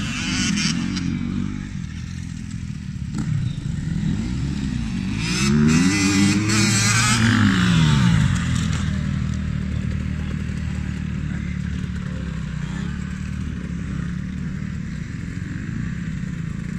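Small dirt bike engines revving as two bikes ride past close by, the pitch climbing and falling several times and loudest about five to eight seconds in. After that, several engines run more steadily further off.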